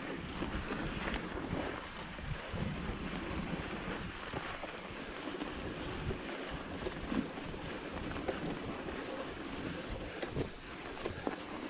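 Wind noise on the microphone of a mountain bike riding a snowy trail, mixed with tyre noise on the snow and scattered light clicks and rattles from the bike.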